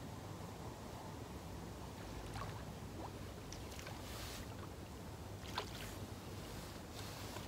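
A small roach splashing at the water's surface as it is reeled in and swung out, heard as a few faint, short splashes and clicks.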